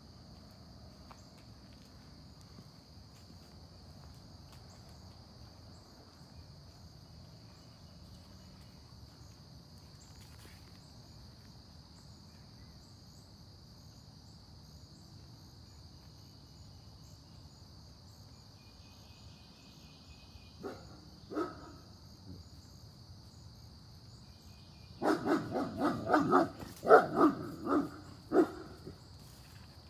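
A German Shepherd barking at deer: two single barks about two-thirds in, then a rapid run of about eight barks near the end. Underneath, a steady high insect drone.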